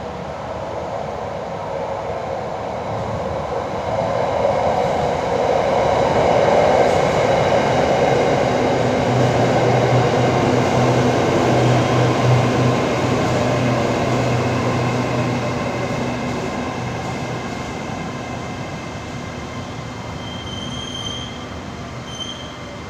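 Hitachi AT-100 electric multiple unit pulling into the station and braking to a stop. Its rumble swells to a peak midway as the cars pass close, then fades as it slows. Near the end come two short, high beeps.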